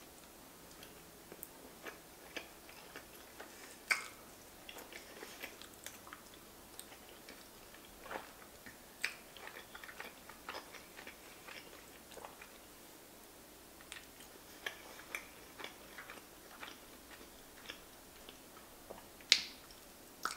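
Close-miked chewing of soft, saucy giant fusilli pasta: irregular small wet mouth clicks and smacks. A sharper click stands out about four seconds in and another near the end.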